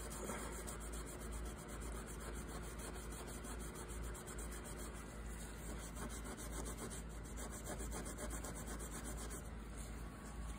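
Scotch-Brite pad scrubbing the crown of a Husqvarna 2100cd chainsaw piston with WD-40, in rapid, steady strokes, wearing off the carbon smear.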